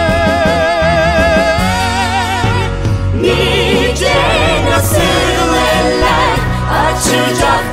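Song with accompaniment: a single long wavering note is held for about two and a half seconds, then several voices sing together over the instruments.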